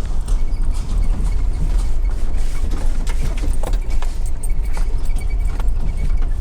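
Car driving slowly, heard from inside the cabin: a steady low engine and road rumble with small rattles and clicks.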